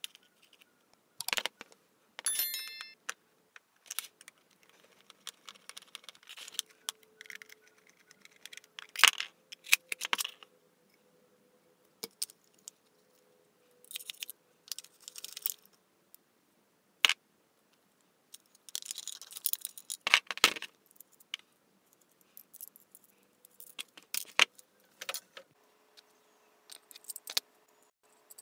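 Small metal parts of a motorcycle mirror and a screwdriver being handled while the mirror is taken apart: irregular metallic clinks, taps and short scrapes, one of them ringing briefly.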